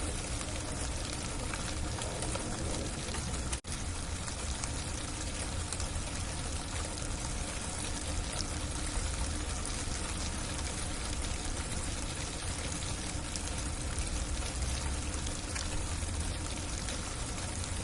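Heavy freezing rain falling steadily, a dense even patter with fine scattered ticks of drops striking. The sound cuts out for an instant about three and a half seconds in, then carries on unchanged.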